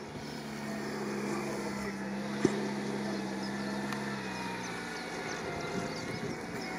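Lada Niva's engine running steadily at low revs as it crawls through mud, its note dropping a little after about four seconds. A single sharp click about two and a half seconds in.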